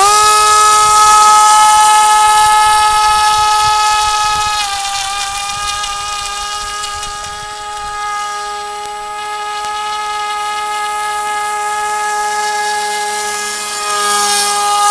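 Radio-controlled airboat's motor and air propeller starting up suddenly and rising within a moment to a steady high-pitched whine, its pitch stepping slightly down about five seconds in. It fades somewhat as the boat runs away across the water and gets louder again near the end as it comes back close.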